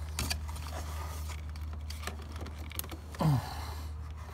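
Clicks and plastic rattles of hands unsnapping the wiring harness connector on a GM transmission control module, over a steady low hum. About three seconds in comes one short, loud squeak that falls quickly in pitch.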